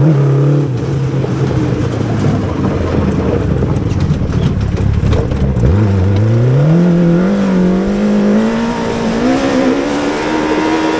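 Yamaha R6 600cc inline-four motorcycle engine in a go-kart, running at low revs, then from about halfway pulling hard with its pitch climbing steadily, falling off right at the end as the throttle comes off.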